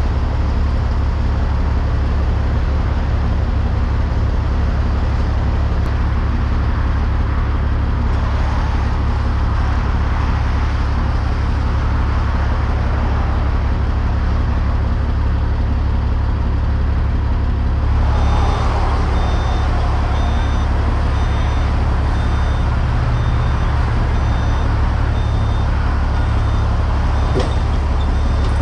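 Heavy diesel engine running steadily with a deep low rumble while an excavator is loaded onto a lowboy trailer; about two-thirds of the way in, a high-pitched travel/backup alarm starts beeping repeatedly.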